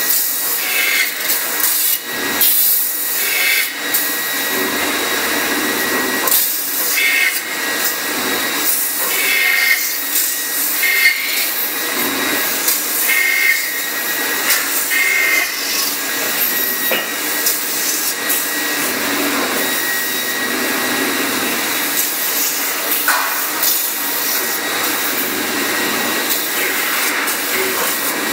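Leico Leifeld PNC 106 CNC metal-spinning lathe running, its spindle turning a metal workpiece while the forming rollers press against it: a steady, loud mechanical hiss with a few high steady tones. Brighter metal-on-metal rubbing sounds come and go during the first half.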